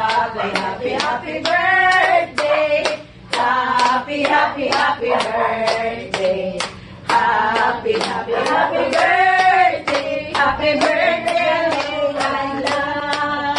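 A small group of women singing together while clapping their hands to a steady beat.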